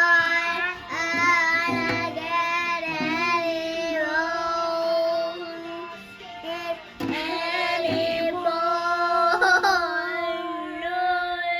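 Music with singing over held notes, dipping briefly about six seconds in before resuming.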